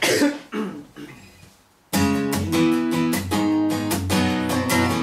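Acoustic guitar strummed: a few strokes that die away in the first two seconds, then steady rhythmic chord strumming from about two seconds in.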